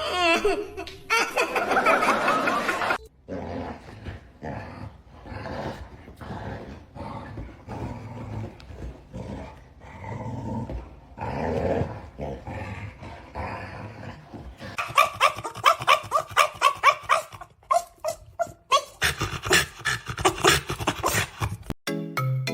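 Dog vocalising, with growls and barks. In the second half comes a fast run of short, repeated barks, several a second.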